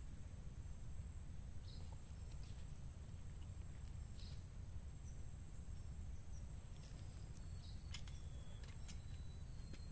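Outdoor ambience: a steady high-pitched insect drone over a low rumble, with a few faint clicks about eight seconds in.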